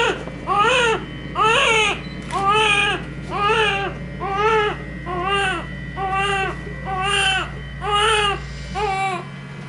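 Newborn baby, just delivered, crying in a steady run of short rhythmic wails, about one a second, each rising and falling in pitch.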